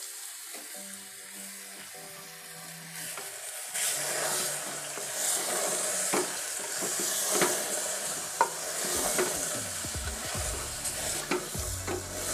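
Marinated mutton sizzling as it fries in hot oil with onions in a pressure cooker. From about four seconds in it gets louder, with a wooden spatula stirring the meat and scraping and knocking against the pot.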